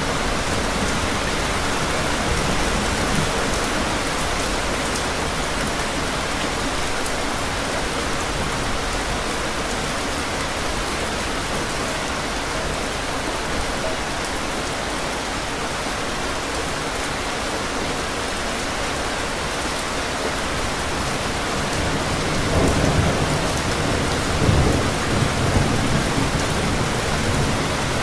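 Steady heavy rain falling, with a rolling rumble of thunder that swells several times in the last few seconds.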